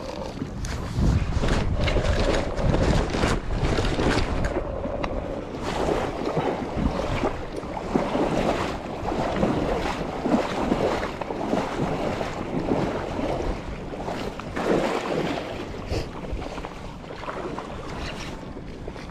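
Wind buffeting the microphone over choppy open water, with irregular knocks and rattles from the spinning rod and reel being handled.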